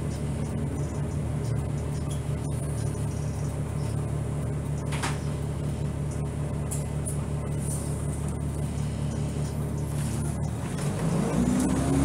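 Blue Bird Xcel 102 CNG bus's John Deere 6081H inline-six running at idle, heard from inside the cabin as a steady low hum, then rising in pitch near the end as the bus pulls away from the stop.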